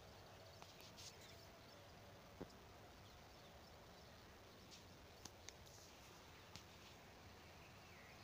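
Near silence: faint background hiss with a few soft, short clicks scattered through.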